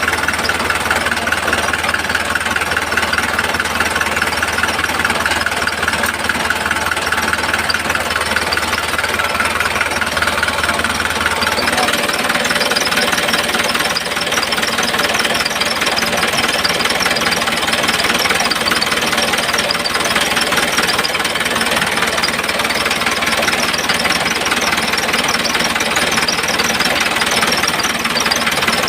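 Homemade model tractor's small electric motor and gears running steadily under load, with a fast rattling buzz. About twelve seconds in its sound changes: the low hum drops away and a higher, rattlier texture takes over.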